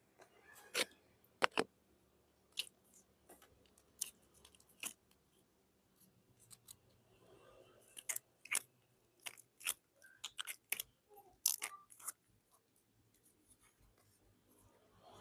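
Slime-filled balloons being handled: an irregular run of short, sharp snaps and clicks, some in quick clusters.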